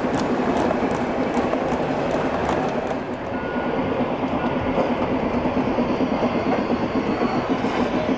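Gauge 1 model trains running on the layout's track: a steady rolling rumble and hum, with a regular pulse about three times a second in the second half.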